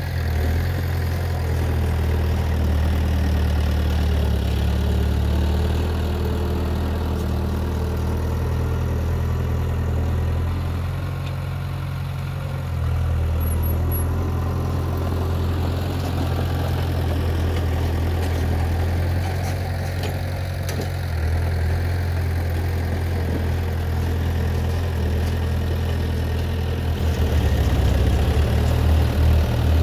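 Heavy earthmoving machinery's diesel engine running steadily with a deep drone, dipping briefly twice. Near the end it grows louder and begins to throb in rapid pulses.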